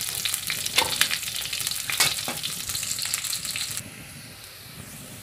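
Sliced shallots and garlic sizzling in hot oil in a wok while they are sautéed toward golden, with a slotted metal spatula scraping against the pan a few times as they are stirred. The sizzle falls much quieter about four seconds in.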